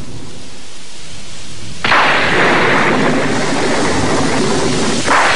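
Storm sound effect: a steady rush of rain, with thunder breaking in suddenly and loudly about two seconds in and again near the end.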